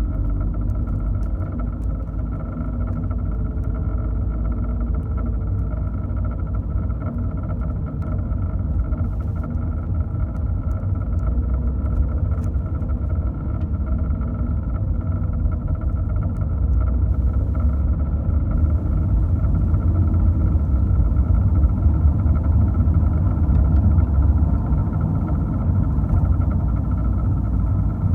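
Porsche Cayman 981's flat-six engine running steadily with a low rumble and a steady hum, the strange noise its owner is recording.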